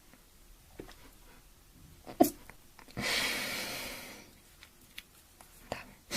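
A girl sneezing once, a sharp burst about two seconds in, followed by a breathy hiss lasting about a second.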